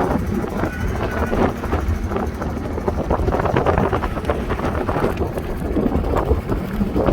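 A boat's engine running steadily while the boat is under way, with strong wind buffeting the microphone.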